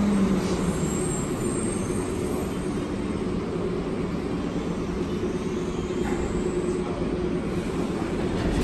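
Plane Train automated people mover, a rubber-tyred train, running into the station behind the platform screen doors and coming to a stop: a steady rumble with a faint hum.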